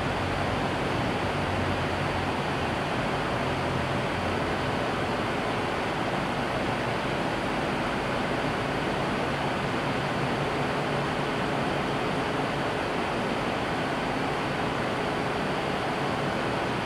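Dozens of small square cooling fans running together, a steady, even rush of air. A faint low hum under it fades about four seconds in.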